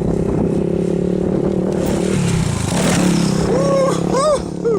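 Honda 450cc single-cylinder off-road engine running in a steady hum whose pitch shifts about two seconds in as the throttle changes. Near the end a person shouts twice, rising and falling in pitch.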